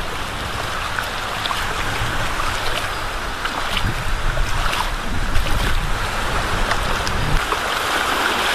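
Waves breaking and washing up the beach on a rising tide, with wind rumbling on the microphone and a few small splashes and knocks in the middle.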